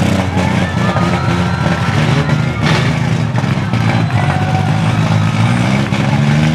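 Engines of wrecked compact demolition-derby cars revving hard, with the pitch climbing and falling as the wheels spin in wet mud. There is a whine over the engines and a sharp knock about two and a half seconds in.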